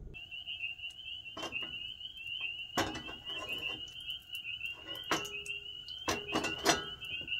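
A steady, high-pitched chorus of frogs trilling, with several sharp knocks and clanks from a cast-iron skillet being handled on a gas grill.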